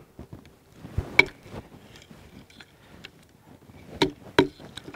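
A wooden baton striking the spine of a KA-BAR BK16 fixed-blade knife, driving it through a small branch laid on a log. There are a few sharp wooden knocks, a pair about a second in and another pair around four seconds in, with lighter taps between.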